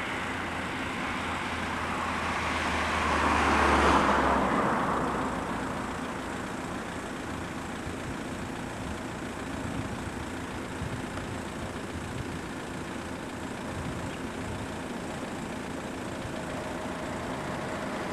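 Road traffic: a vehicle passes close by, swelling to its loudest about four seconds in and then fading, over a steady hum of traffic.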